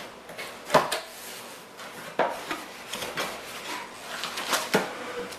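Cardboard box being handled and its top flaps pulled open: cardboard scraping and rustling, with three sharp knocks, the first the loudest.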